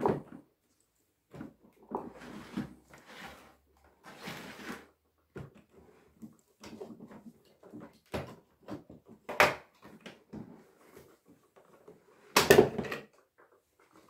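Plastic clicks, knocks and scraping as the dust and water tank of a Samsung VW9000 wet & dry vacuum is worked free of the body and lifted out, with the loudest clatter near the end.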